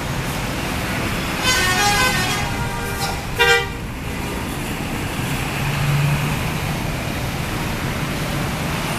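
Bus 'telolet' multi-tone horn playing a short stepped run of notes about a second and a half in, then one loud short blast about three and a half seconds in, over steady bus engine and traffic noise.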